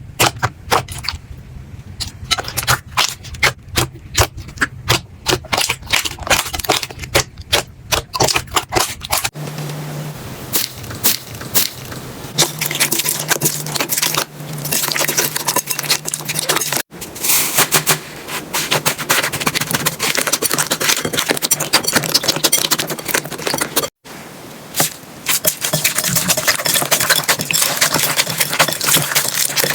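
Slime being handled by hand, making rapid sharp pops and clicks. In the later clips these give way to a dense, steady crackling, and the sound breaks off suddenly three times between short clips.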